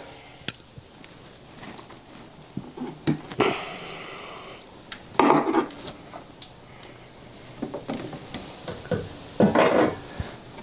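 Hands pulling and working old automotive wiring free from a harness: rustling and scraping of wires and tape, with scattered light clicks and knocks. There is a stretch of rustling about three seconds in, and louder bursts of handling about five and nine and a half seconds in.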